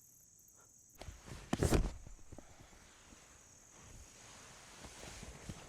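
Footsteps of a person walking outdoors, a cluster of thumps loudest about a second and a half in, then lighter scattered steps, over a steady high chirring of insects.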